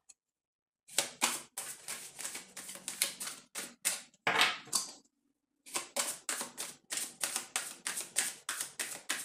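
A deck of tarot cards being shuffled by hand: a quick run of card flicks and slaps, several a second, that breaks off briefly about five seconds in and then starts again.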